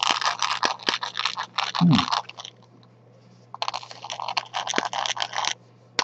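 A freshly 3D-printed plastic worm gear and gear wheel being turned by a hand crank: rapid, irregular clicking and scraping of plastic teeth, in two spells with a pause of about a second between them.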